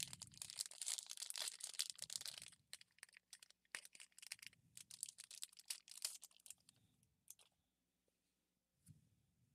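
Foil wrapper of a Pokémon booster pack being torn open and crinkled for about two and a half seconds, followed by lighter, scattered crackles that die away after about seven seconds.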